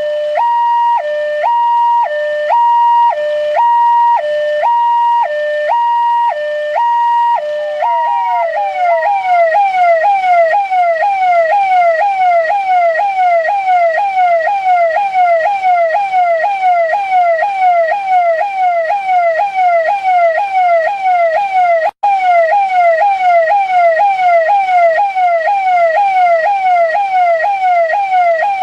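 Indian police siren, loud. It first alternates between a high and a low note about once a second, then about eight seconds in switches to a fast, repeating falling sweep, a few per second. It cuts out for an instant about two-thirds of the way through.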